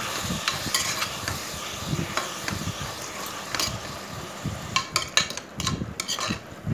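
Sliced onions and tomatoes sizzling in oil in a pressure cooker while a metal spoon stirs them, scraping and clicking against the pot, with a quicker run of clicks near the end.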